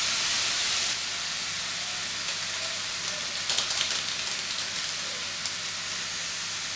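Chopped vegetables sizzling in hot oil in a kadai, a steady hiss, with a few quick crackles about three and a half seconds in.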